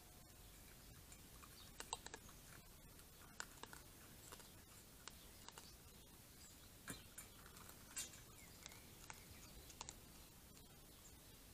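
Raccoon eating dry kibble from a stainless steel bowl: faint, irregular crunches and clicks, with the strongest about two seconds in and about eight seconds in.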